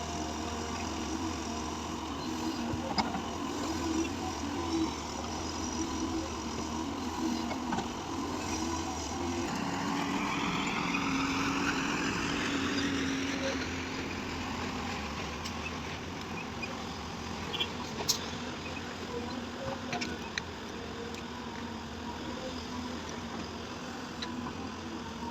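Heavy-equipment diesel engine running steadily, its pitch rising for a few seconds about ten seconds in as it revs, with a sharp click near the end.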